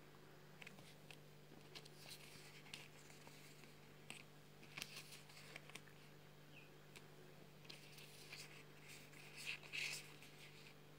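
Faint rustling and light ticking of a stack of paper stickers being handled and shuffled by hand, with a short louder cluster of rustles near the end. A steady low freezer hum runs underneath.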